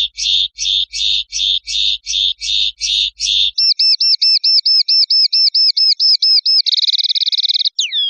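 Common linnet singing: about ten buzzy notes at roughly three a second, then a faster run of short rising notes, a rapid trill and a final down-slurred whistle.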